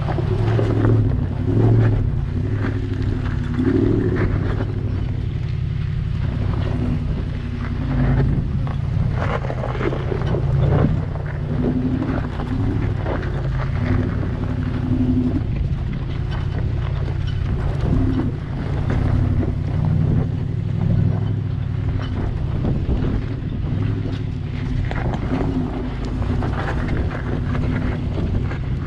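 A truck engine running under load on a trail, its revs wavering up and down, with wind buffeting the microphone and scattered knocks and crunches from the vehicle over rough ground.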